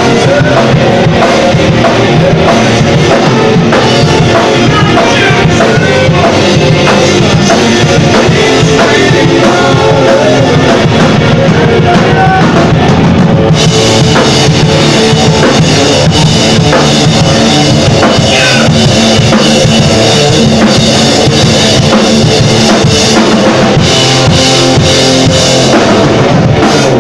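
Live rock band playing loud: electric guitars, bass guitar and a pounding drum kit, with a singer's voice in the mix. The top end grows much brighter about halfway through, as the cymbals get heavier.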